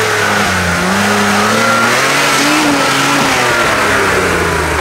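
Off-road rally car's engine revving under load as it drives up a rutted dirt track, the revs rising and falling. It comes close to the camera near the end.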